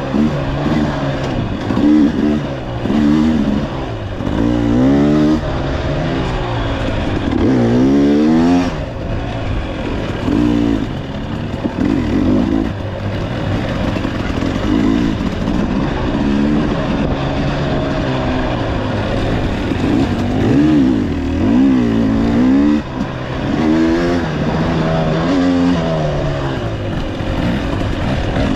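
Dirt bike engine revving up and down again and again in short throttle bursts, as it picks its way over rocks, roots and ledges on tight single-track.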